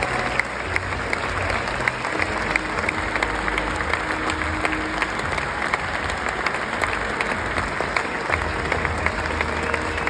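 A large audience applauding in a big auditorium: a dense, steady wash of many hands clapping.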